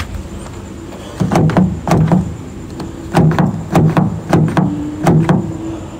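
An old 1970s Malay song playing from a car radio inside the closed car, heard muffled through the door, with a steady beat starting about a second in and a held note near the end.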